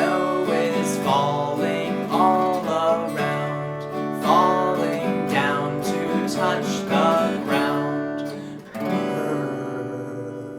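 Acoustic guitar playing a run of picked and strummed notes, some of them sliding in pitch; a final strum just before nine seconds in rings out and fades.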